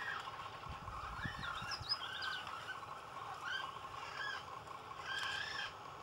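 Birds calling in a magnificent frigatebird breeding colony: a run of short, arched, warbling calls, with quick high chirps in between.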